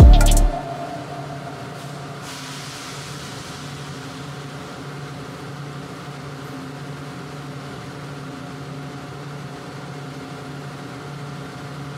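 A music track ends about half a second in, leaving a steady machinery hum with a few low, unchanging tones.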